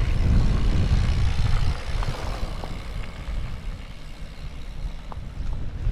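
Gusty wind buffeting the microphone with a deep rumble, heavy for the first second and a half, easing off, then picking up again near the end. A few faint ticks sound through it.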